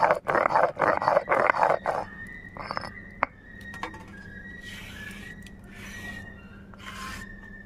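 Stone roller (nora) grinding spice paste on a flat stone slab (sil): rhythmic rasping strokes, about three a second and loud for the first two seconds, then softer. A thin, high wavering whine runs through the quieter part.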